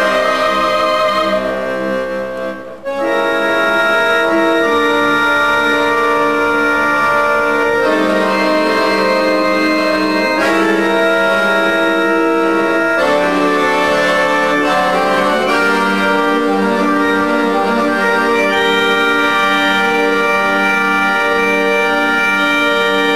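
Solo accordion playing sustained reedy chords and melody that change every second or two, with a brief drop in volume and a short break about two to three seconds in.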